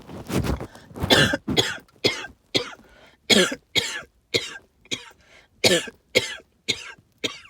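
A person in a hacking, wheezy coughing fit: a quick string of harsh coughs, about two a second, each ending in a whistling tone that falls in pitch. The wheezing is put down to an allergic reaction to tree pollen and mold spores.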